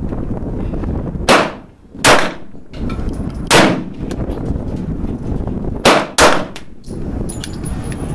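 Five 9 mm pistol shots from an FMK 9C, fired in an uneven string: two about a second apart, a pause, one more, then a quick pair. Each is a sharp crack with a short echo over steady background noise.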